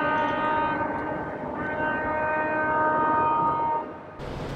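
A fishing vessel's horn sounding two long, steady blasts: the first ends just under a second in, the second runs from about a second and a half to nearly four seconds. Near the end it cuts abruptly to an even outdoor rush.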